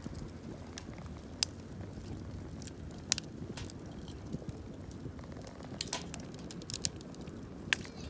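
Wood fire crackling, with sharp pops every second or so over a steady low background noise.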